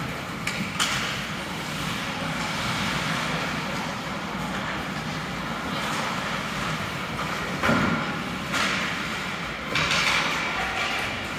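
Ice hockey play in an arena: skate blades scraping the ice in several hissy bursts, with a couple of sharp stick-on-puck clacks near the start and a louder knock, like the puck hitting the boards, about two-thirds of the way in.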